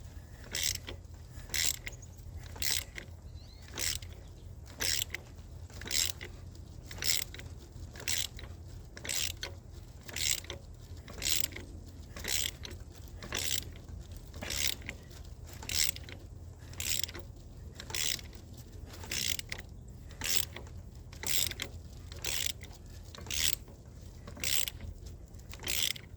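Hand ratchet wrench clicking in short bursts about once a second, stroke after stroke, as a harmonic balancer is worked off by hand, over a steady low hum.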